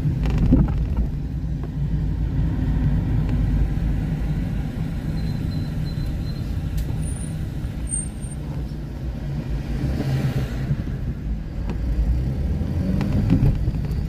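Car driving in slow city traffic, heard from inside the cabin: a steady low rumble of engine and tyres on a wet road, with a short rise in hiss about ten seconds in.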